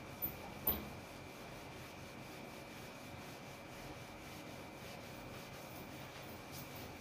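Whiteboard duster wiping across a whiteboard: faint, steady rubbing, with a couple of light knocks in the first second.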